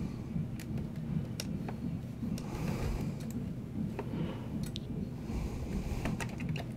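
Light plastic clicks and ticks from a Compaq Presario 1810 laptop's wrist rest being pried at its retaining clips with a small tool: scattered single clicks, with a quick cluster of them near the end.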